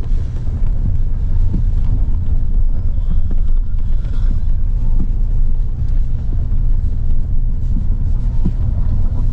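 Heavy rain and wind: a steady deep rumble with scattered light ticks.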